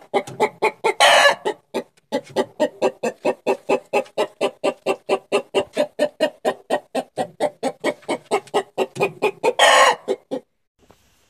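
A hen clucking rapidly, about four clucks a second, broken twice by a loud drawn-out squawk, about a second in and near the end. The clucking stops shortly before the end.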